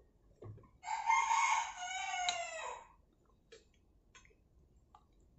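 A rooster crowing once, a single call of about two seconds starting about a second in, its pitch dropping at the end.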